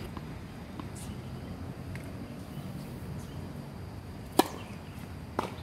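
Tennis racket strings hitting a tennis ball: one sharp, loud pop about four and a half seconds in, then a second, fainter pop a second later, with a few faint distant hits before.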